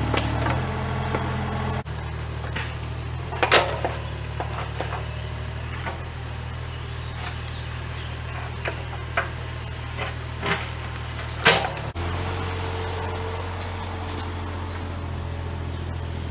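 JCB 8030 mini excavator's diesel engine running steadily while the bucket digs, with a few sharp knocks from the bucket working the ground, the loudest two about three and a half and eleven and a half seconds in.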